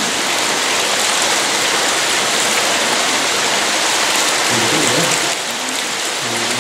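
Hot-spring stream water rushing and splashing steadily over rocks in a small cascade.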